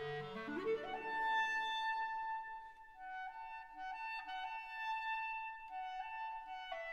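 Instrumental background music. A quick rising run of notes about a second in leads to a long held high note, then short notes stepping back and forth.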